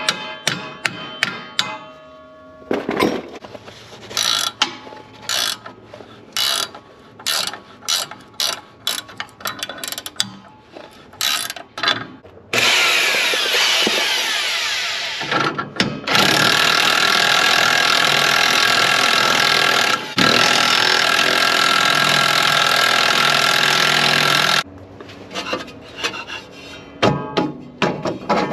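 Ratchet wrench clicking in quick runs, then a corded electric drill running steadily for about twelve seconds with two short breaks, then more ratchet clicks near the end.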